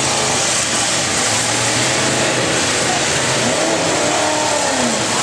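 Demolition derby cars' engines running and revving together, several pitches rising and falling over a dense, steady noise.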